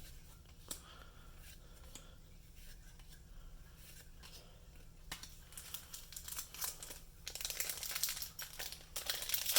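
Foil trading-card booster pack wrapper crinkling and tearing as it is opened, getting louder in the last two seconds. Before that, a few faint clicks.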